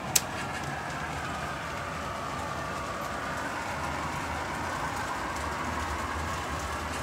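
LEGO model locomotive with four LEGO train motors pulling a train of boxcars along plastic track: a steady running noise of motors and wheels, with one sharp click about a fifth of a second in.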